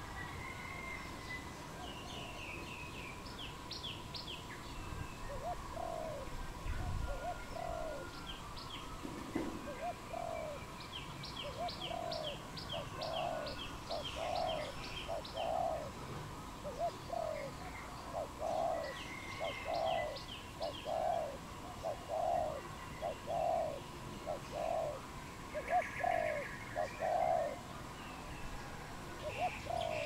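Spotted dove cooing: a long series of short, low coo notes in small groups, growing louder toward the end. Small birds chirp in quick, high runs of notes over it.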